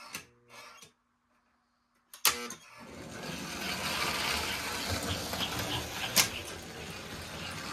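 Motors and gears of American Flyer S-gauge toy steam locomotives running on the track. A sharp click about two seconds in is followed by a short buzz, and the running noise then builds and holds steady, with another sharp click about six seconds in.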